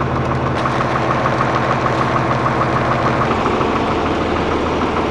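Engine running steadily with an even, rapid pulse, driving the sprayer's pump as it builds pressure after its clogged filters and line were cleared.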